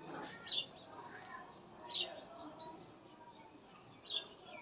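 Small birds chirping: a quick run of high chirps lasting about two and a half seconds, then a single chirp near the end.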